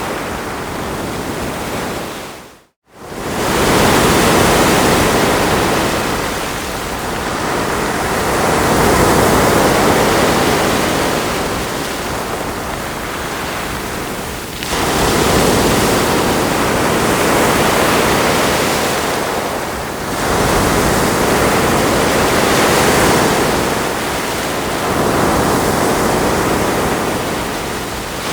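Ocean surf: waves breaking and washing up a shore in a continuous hiss that swells and ebbs every few seconds. The sound cuts out for a moment about three seconds in, then comes back.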